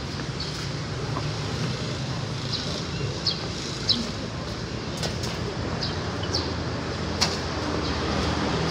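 Steady low hum of road traffic with short high chirps scattered through it, and a sharp click about five seconds in and another about seven seconds in.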